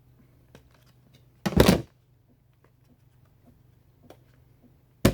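Two short thuds of objects being handled, about a second and a half in and again near the end, with a few faint clicks between.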